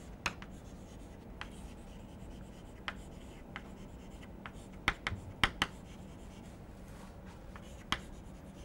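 Chalk writing on a blackboard: faint scratching strokes with a scatter of sharp taps as the chalk meets the board, most of them about five seconds in.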